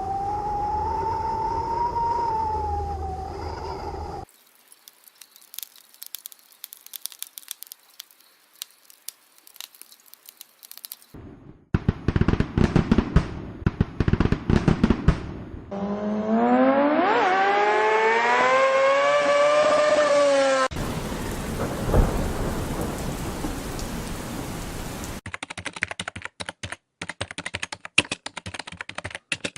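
A montage of separate sound effects cut abruptly one after another: a wavering pitched tone, sparse crackling, a fast clatter of knocks, a pitched call that rises and then falls, a steady rain-like hiss, and rapid clicking.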